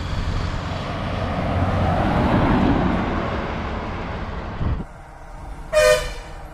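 A TSRTC bus approaching and passing, its engine and tyre noise swelling to the loudest point about two seconds in. The sound cuts off abruptly near five seconds, and near the end a bus horn gives one short toot as another bus approaches.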